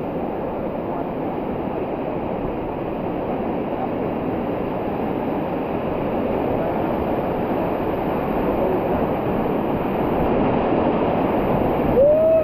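Steady rushing of river water around a raft, low and even throughout.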